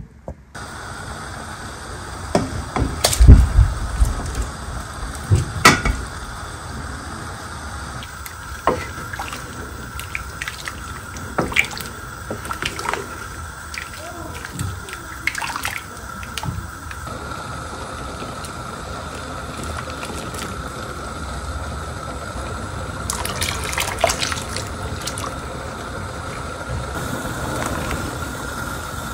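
Liquid pouring and dripping over a steady background hiss, broken by scattered sharp knocks and clinks, the loudest two a few seconds in.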